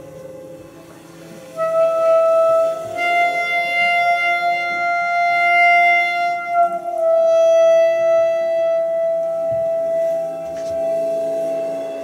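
Clarinet coming in about a second and a half in over softer held tones, then playing long sustained notes that move slowly between a few pitches.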